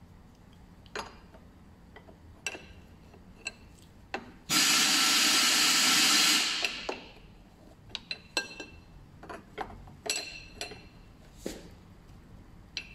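Metal clicks and clinks of an open-end spanner working a braided oil-cooler hose fitting on the oil filter adapter. A little over four seconds in, a loud burst of noise lasts about two seconds and then fades.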